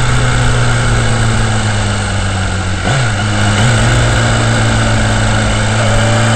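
Motorcycle engine running at steady revs at a cruise, with wind noise over it and a couple of brief pitch wobbles about three seconds in. Near the end the revs begin to climb as it accelerates.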